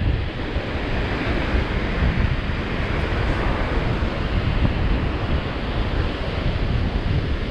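Ocean surf washing onto the beach under strong wind buffeting the microphone: a steady rush with a low, gusty rumble.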